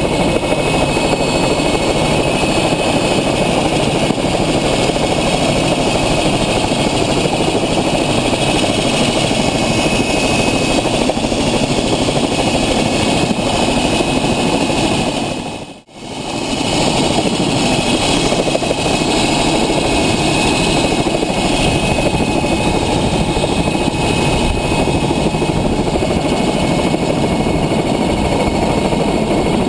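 Twin-engine Agusta helicopter running on the ground, turbines and rotor going steadily during a ground run for rotor blade balancing. The sound dips out sharply for a moment about halfway through, then returns.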